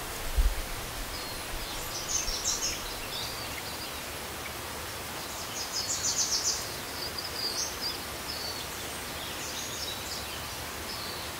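Outdoor nature ambience: a steady, even hiss with bursts of high, rapid bird chirping about two seconds in, around six seconds, and near eight seconds. A brief low thump comes just after the start.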